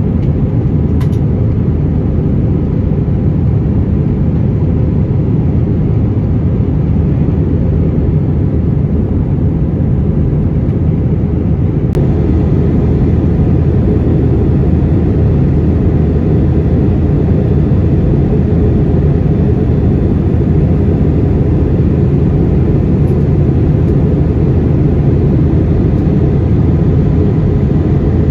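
Steady cabin noise of an Airbus A321-200 in flight, heard from a seat in the cabin: an even low rush of engines and airflow, with a single faint click about twelve seconds in.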